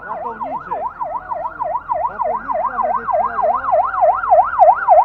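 Fire-brigade van's electronic siren in a fast up-and-down yelp, about four sweeps a second, growing louder as the vehicle drives up.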